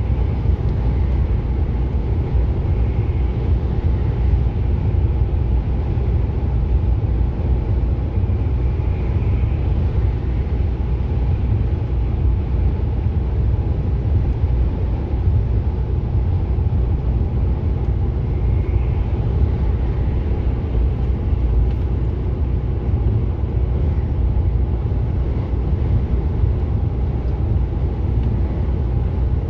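Steady low drone of a heavy truck's engine and tyres, heard from inside the cab while cruising at highway speed.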